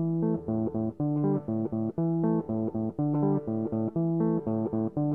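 Background music: a guitar riff of quick plucked notes over a bass line, repeating in a steady rhythm.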